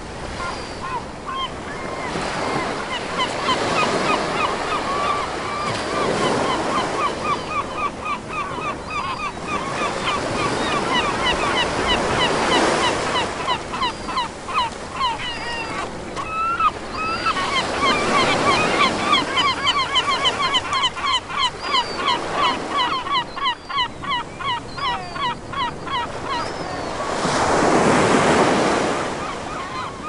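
Surf washing onto a beach, swelling and falling every few seconds, with gulls calling over it in long fast runs of short repeated notes.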